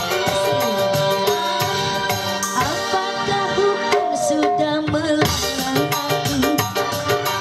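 Live dangdut band music over a PA: two female singers with keyboard, guitar and hand drums keeping a quick rhythm. A woman's sung melody glides over the band.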